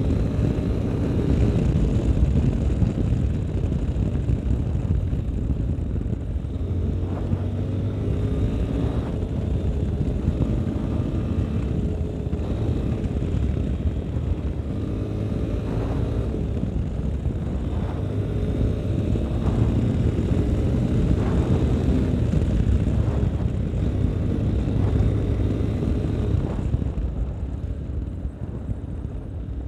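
Yamaha Ténéré 250's air-cooled single-cylinder engine running under way on a gravel road, mixed with wind and tyre noise. The engine's pitch rises and falls with the throttle, there are a few short knocks from the rough surface, and it eases off near the end.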